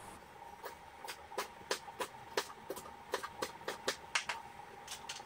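Kitchen knife chopping green peppers on a cutting board: quick, uneven knocks of the blade on the board, about three a second, over a faint steady high hum.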